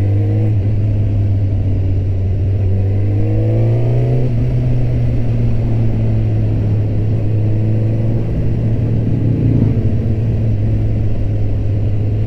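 Suzuki GSX-R 1000 K8 inline-four engine under way, heard from the rider's position. The pitch climbs briefly at the start and again about three seconds in as it accelerates, then holds steady.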